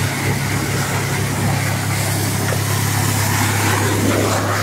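Steady drone of the motor pump feeding a gold miner's high-pressure water-jet hose, with the even hiss of the water jet spraying against the soil.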